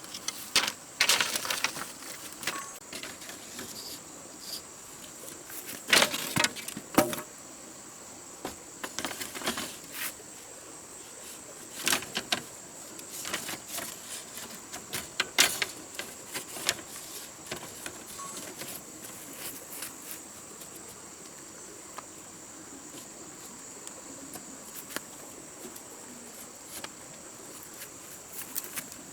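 A steady high-pitched insect drone, typical of crickets or cicadas, runs under irregular clicks, knocks and light clatter from things being handled. The sharpest knocks come around 6 to 7 seconds in and again near 12 and 15 seconds.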